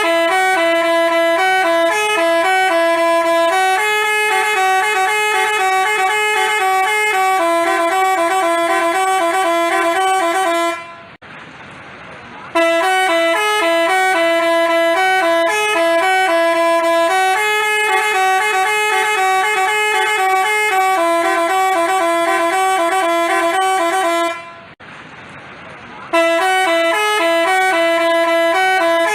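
Basuri telolet horn playing a multi-note melody in quick stepped tones. It plays for about eleven seconds, breaks off for a second or so, plays the tune again, breaks off once more near the end, and starts up again.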